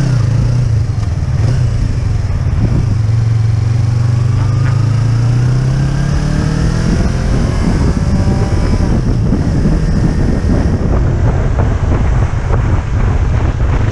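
Yamaha YZF-R25's parallel-twin engine pulling away and accelerating, the pitch rising through the revs a few seconds in and again later, with wind noise on the helmet microphone.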